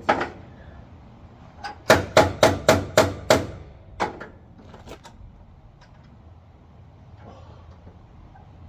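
Hammer blows on metal: one strike, then a quick run of six about a quarter second apart, then one more, as a 12 mm wrench is pounded onto a stripped battery hold-down bolt.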